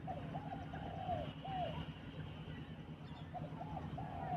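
Dove cooing: a phrase of short arched coos given twice, once at the start and again near the end, over a low steady hum.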